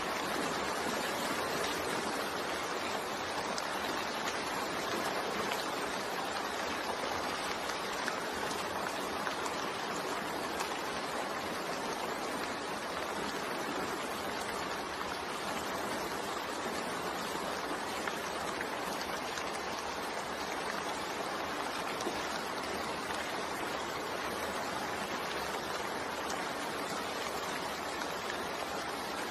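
Steady rain falling, an even continuous hiss with no breaks or separate events.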